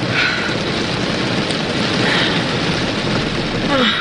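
Heavy rain pouring steadily on a car's roof and glass, heard from inside the cabin.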